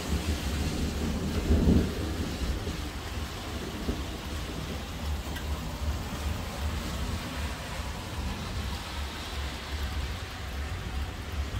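Thunder rumbling over steady rain. The rumble is loudest just under two seconds in, then carries on lower beneath the hiss of the rain.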